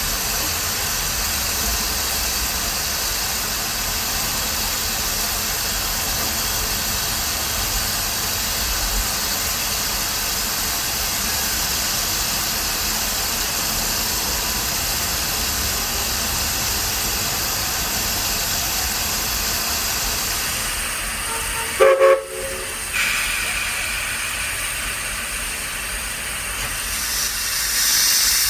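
Steam hissing steadily from the 1916 Baldwin steam locomotive Walt Disney World Railroad No. 4, with a brief loud pitched blast about three-quarters of the way through and the hiss swelling near the end.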